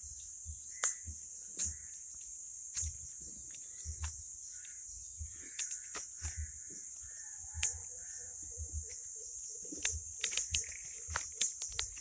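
Garden ambience: a steady high-pitched hum throughout, with faint bird calls and a quick run of low repeated notes about two-thirds through. Scattered sharp clicks and low bumps, more of them near the end.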